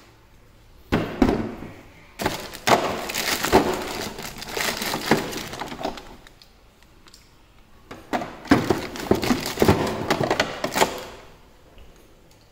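Clear plastic wrapping crinkling and rustling as it is handled, in two spells of a few seconds each, with sharp knocks mixed in.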